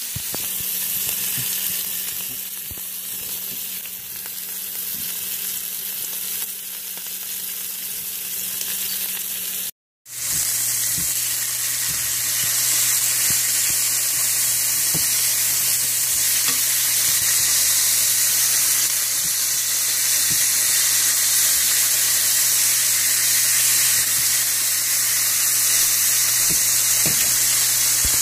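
Bone-in steaks sizzling steadily in hot oil in a frying pan. The sound cuts out briefly about ten seconds in, and the sizzle is louder afterwards.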